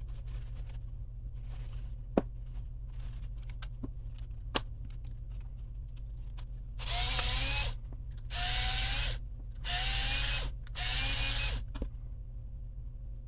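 A small power driver spinning in four short runs, each about a second long with a slightly rising motor whine, as screws come out of the RC truck's rear bulkhead. A couple of sharp clicks of small parts being handled come before it.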